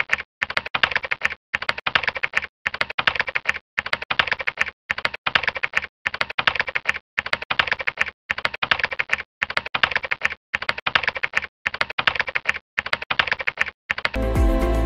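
Computer keyboard typing sound effect: rapid key clicks in runs of about a second, with short pauses between them. The typing stops shortly before the end as music comes in.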